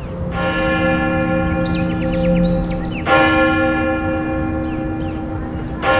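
Church bell struck three times, about three seconds apart, each stroke ringing on into the next.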